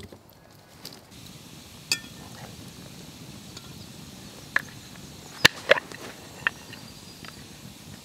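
A few sharp metallic clinks, the loudest about five and a half seconds in, as a small cast-iron Dutch oven's wire bail is settled on the hook of a metal pot hanger, over the low steady sound of the campfire.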